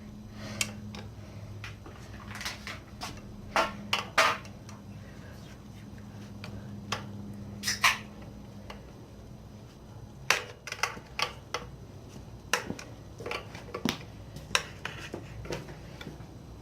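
Irregular sharp clicks and knocks of a tool and hard bike parts being handled as something is wedged in to pry a fitted piece off the bike, with a low steady hum under the first half.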